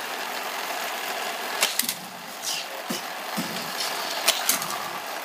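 Small electric motor of a toy car track whirring steadily, with a few sharp plastic clicks.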